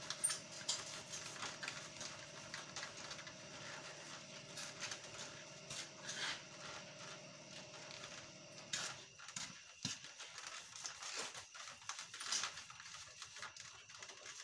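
Irregular light knocks and clicks over a steady hum, with the hum cutting out about nine seconds in.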